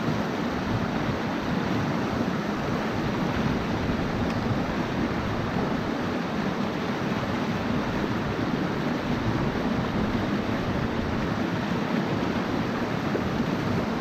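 Steady, even rush of a mountain stream's flowing water.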